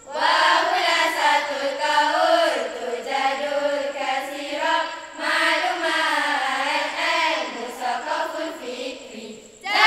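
A group of girls chanting a verse in unison, in four sung phrases with brief breaks between them.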